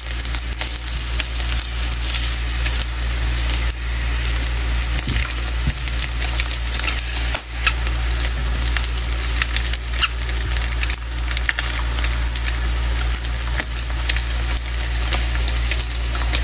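Sliced luncheon meat sizzling in oil in a nonstick frying pan: a steady frying hiss with scattered small pops and clicks.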